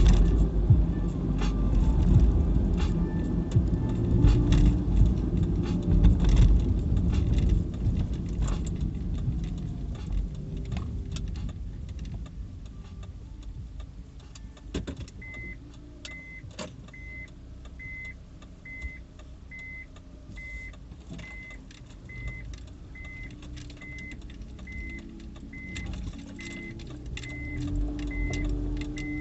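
Car driving, heard from inside the cabin: a low engine and road rumble that fades as the car slows. About halfway through, a short electronic beep starts repeating a little more than once a second. It is typical of the reverse-gear warning beeper while the car manoeuvres to park.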